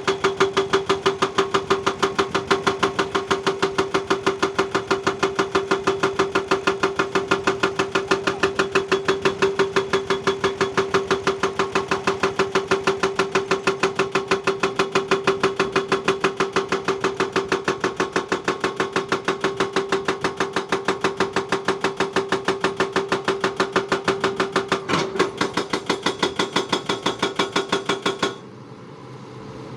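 Heavy digging machine running, with a fast, even pulsing of about four beats a second over a steady hum; it cuts off suddenly near the end.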